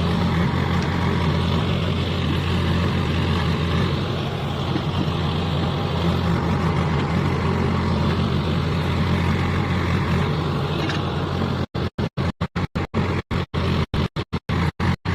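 Heavy diesel machinery engine running steadily under work. Near the end the sound cuts out to silence and back more than a dozen times in quick succession.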